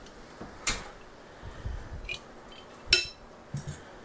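Glass and metal kitchen clinks: a sharp knock about a second in and a louder one near three seconds, as an empty glass canning jar is handled and set down on the counter, followed by a few light clicks.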